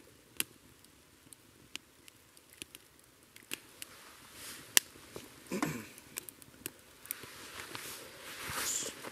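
Small wood fire crackling in a titanium twig stove, with irregular sharp pops and snaps. About halfway through there is a louder scrape of handling, and a rustle near the end.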